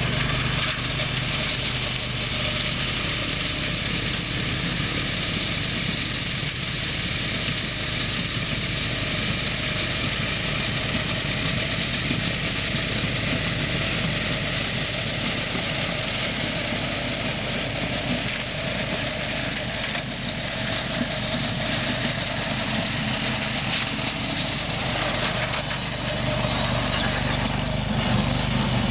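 Engine of a tracked robotic tool carrier running steadily while its front-mounted snowblower throws snow, a continuous hum with a rushing hiss over it.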